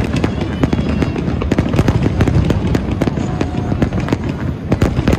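Fireworks display: aerial shells bursting in rapid, overlapping bangs and crackles, several a second, over a continuous low rumble.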